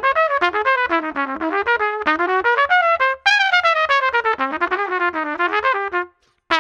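LOTUS Universal Max trumpet played solo in fast runs of notes. It breaks off briefly about three seconds in, then starts a new phrase on a high note that winds downward. The first phrase is played with the brass tuning slide and light valve caps, the second with heavy valve caps.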